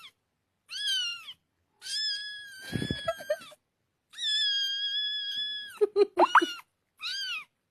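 A kitten mewing repeatedly: a series of high, thin mews, some short and arched and two long and drawn out, with a few short choppy chirps near the end.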